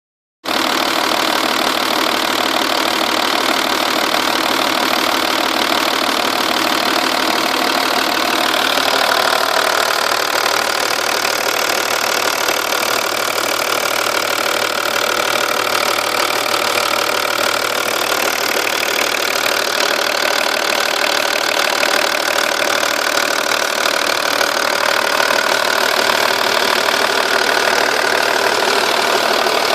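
2.5 V6 TDI diesel engine idling steadily with a fast, light ticking. The owner suspects a blown exhaust gasket at the rear of the engine on the passenger side, though nothing shows. The tone of the engine shifts about eight seconds in.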